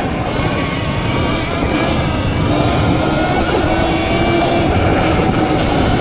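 79bike Falcon Pro electric dirt bike ridden fast over a trail: a steady motor whine under loud rushing wind and tyre noise.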